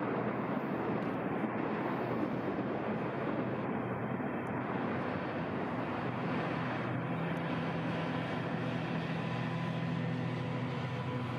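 JR Freight DF200 diesel-electric locomotive running past at the head of a tank-wagon freight train: a steady low engine drone over the rolling noise of the wagons' wheels on the rails.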